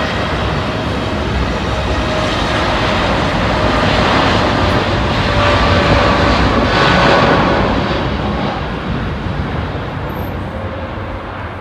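Boeing 787 jet engines running at takeoff power during the takeoff roll, a broad rumble with a steady whining tone. The sound swells to its loudest about six to seven seconds in, then fades as the airliner moves away.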